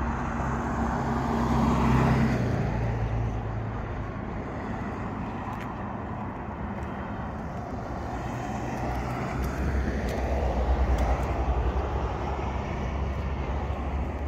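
Car engine noise with a low hum, louder about two seconds in and again from about ten to twelve seconds.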